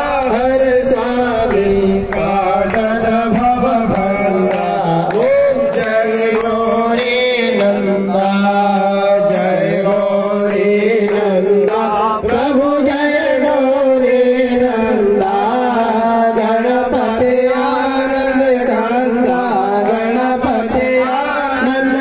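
Hindu devotional aarti song to Ganesh: a voice singing the melody over a steady percussion beat.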